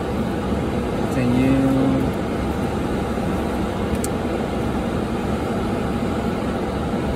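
Steady noise inside a car cabin from the air conditioning blowing. A brief low hum comes about a second in, and a single click about four seconds in.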